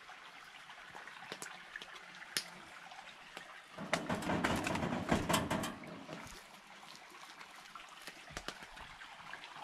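Cornbread being crumbled by hand into a metal baking pan: soft crumbling and small bits dropping onto the pan, loudest for a couple of seconds in the middle.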